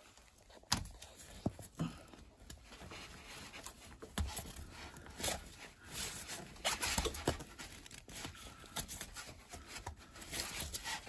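Handling noises from a gloved hand working in a cramped engine bay, trying to grip a spark plug wire boot: irregular short clicks, rubbing and scraping against the engine parts.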